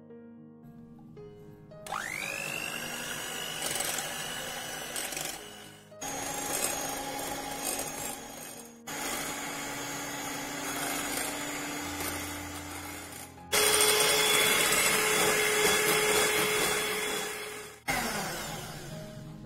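Borosil electric hand mixer starting up with a rising whine about two seconds in, then running steadily with its beaters whipping egg whites into stiff foam. The whir breaks off and resumes several times and is loudest toward the end, then winds down with a falling tone. Soft piano music plays before the mixer starts.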